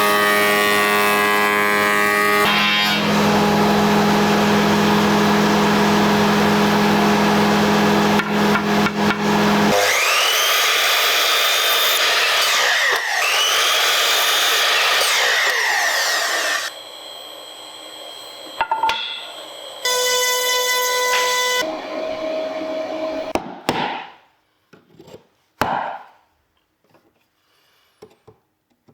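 Woodworking power tool: a motor running steadily for about ten seconds, then passes over wood with a rising and falling whine for several seconds. It quiets at about 17 s, and the end holds a few scattered knocks and clicks.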